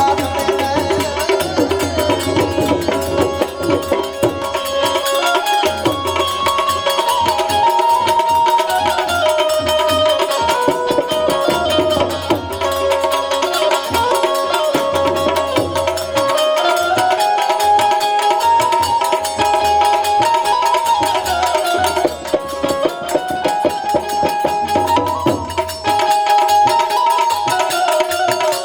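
Instrumental interlude of Gujarati devotional folk music: a tabla keeps a steady rhythm under a melody line played on an instrument, with no singing.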